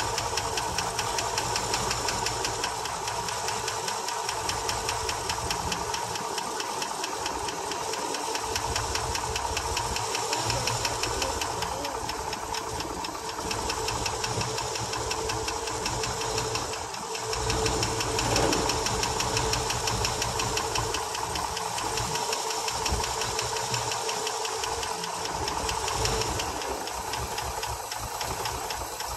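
International Harvester 392 V8 running on fuel poured into the carburetor, with a rapid, even ticking over the engine note. The ticking is the light IH lifter tick of hydraulic lifters not yet pumped back up after years of sitting.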